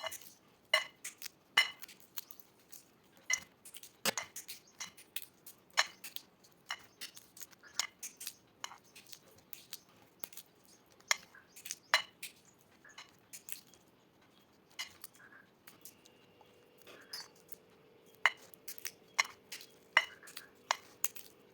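Irregular small clicks and cracks of peanuts being shelled or peeled by hand, pieces tapping against a dish. A faint steady hum joins in about two-thirds of the way through.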